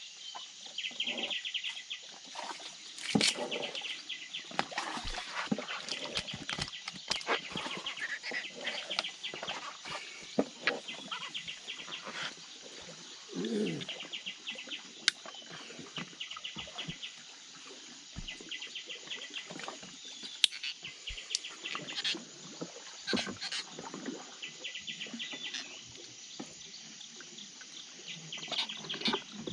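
Birds calling from the riverbank forest in repeated quick runs of high chirps, "jid jid jid", with scattered sharp clicks and knocks from handling gear in a wooden boat.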